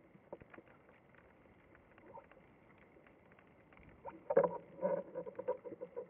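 Underwater sound picked up through a camera's waterproof housing: a faint hiss with scattered clicks and crackles. About four seconds in comes a louder run of crackling and knocking.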